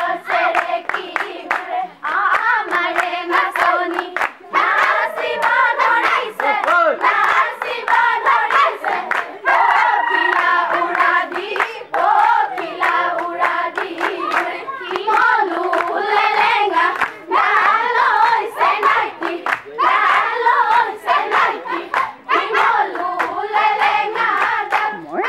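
A group of women singing a Bihu song together in chorus, with steady hand clapping keeping time.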